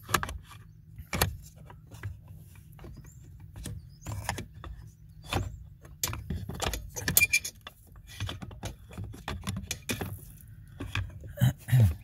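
Irregular clicks, knocks and rattles of a plastic HVAC blend door actuator and its metal mounting bracket being handled and worked into place among the dash parts, over a low steady hum.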